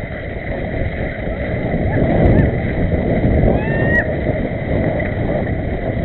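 Horses galloping across a field, heard from a camera carried by one of the riders: a steady rumble of hoofbeats and wind buffeting the microphone, with a brief high rising call a little before four seconds in.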